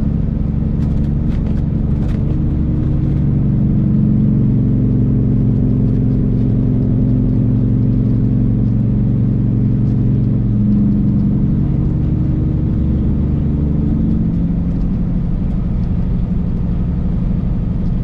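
Heavy truck's diesel engine running steadily under way, heard from inside the cab, its low drone shifting slightly in pitch about ten seconds in.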